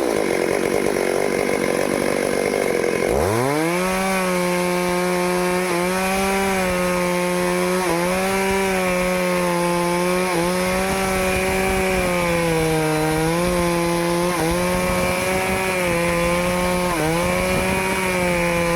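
Two-stroke Stihl chainsaw running at high revs while cutting teak wood, its pitch dipping briefly every couple of seconds as the chain bites. About three seconds in, a rougher, noisier stretch ends as the engine note sweeps up and settles.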